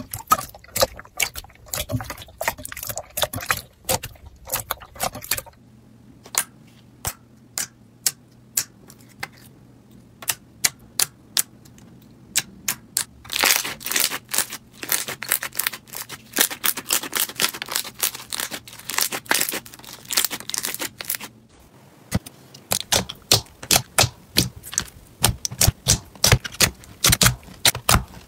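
Hands squeezing and poking slime, giving runs of sharp clicks and crackling pops. The texture of the sound changes about five seconds in and again about twenty-two seconds in, as one slime follows another.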